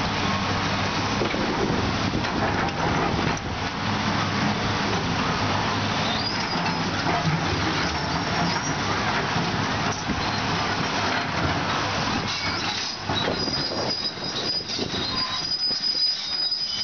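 Heavy demolition machinery running with a steady engine drone and clattering debris. High-pitched metal squeals come in twice, briefly about six seconds in and longer near the end.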